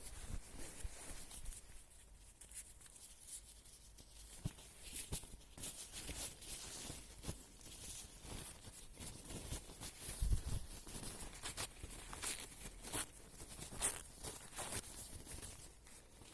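Paper tissues being handled and torn to make fire tinder: faint, irregular rustling with scattered light clicks and crackles.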